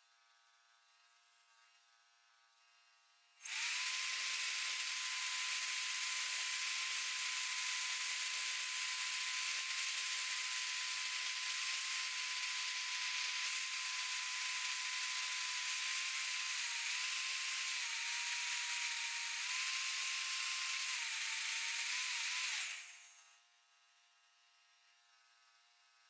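Magnetic drill press switched on about three seconds in, its motor running with a steady whine while an annular cutter bores through thick steel plate. The whine dips and wavers a little under load near the end, then the drill is switched off and spins down. A faint steady hum is there before and after.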